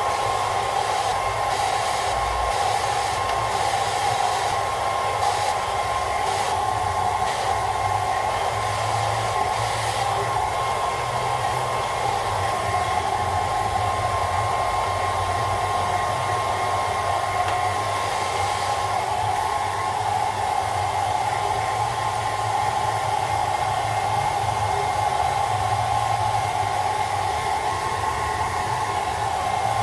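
Hair dryer running steadily: a constant rush of blown air with a thin, unchanging motor whine.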